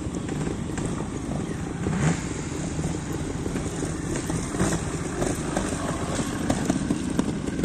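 Trials motorcycle engine running at low revs as the bike picks its way over rock, with a brief rise in revs about two seconds in.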